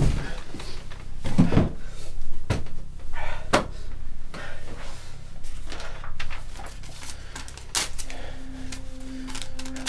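A film soundtrack of separate knocks and thuds over a low rumbling drone. From about eight seconds in, a pulsing low synth note starts repeating.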